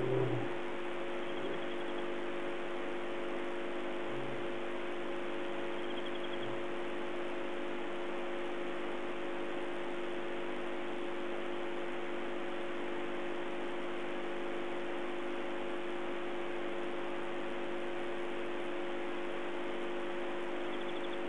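Lion roaring bout ending in the first few seconds: a louder low call at the very start, then a few short low grunts that fade out. Under it and after it, a steady hiss with a constant hum.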